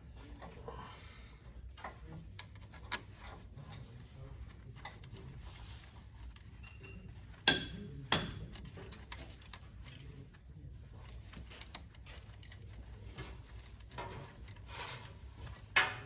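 Scattered metallic clicks and knocks from handling a brake caliper and hand tools during reassembly, with three sharp knocks standing out, two close together about halfway and one near the end. A few short high chirps come and go in between.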